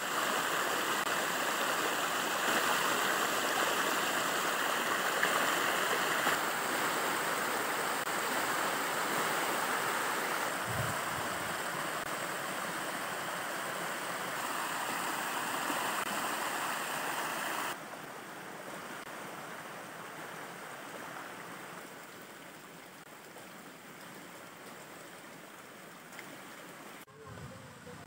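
Hot-spring stream rushing and splashing over rocks, a steady water noise that drops to a softer flow about two-thirds of the way through.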